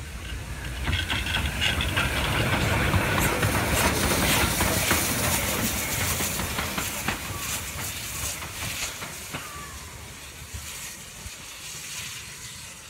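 BR Standard 9F 2-10-0 steam locomotive passing close by: steam hissing, with the clank of its wheels and motion. It builds about a second in, is loudest midway and fades as it draws away.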